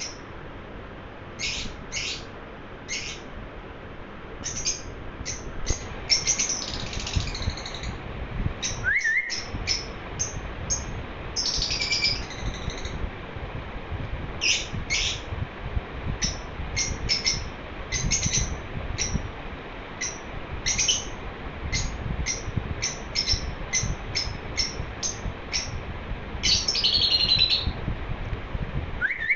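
Pet lovebird chirping: many short, high chirps in quick irregular runs, broken by a few longer chattering warbles.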